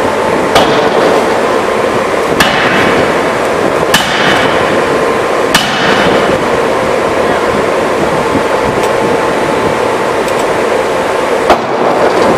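Industrial forging hammer striking: four blows about a second and a half apart, then a pause and another strong blow near the end. A steady machinery hum runs underneath.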